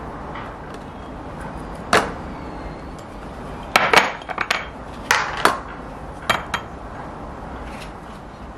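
Kitchenware being handled on a counter: a plastic food-storage container, its lid and a mesh strainer click and knock. One sharp click comes about two seconds in, and a cluster of clicks follows between about four and six and a half seconds.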